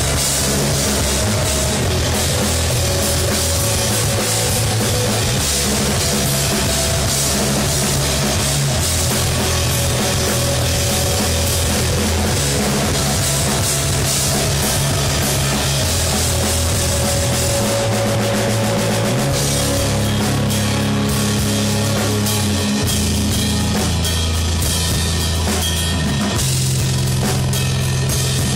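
Post-rock band playing live, instrumental: loud distorted guitars, bass and a drum kit with steady cymbal wash, the bass moving between long held notes every few seconds.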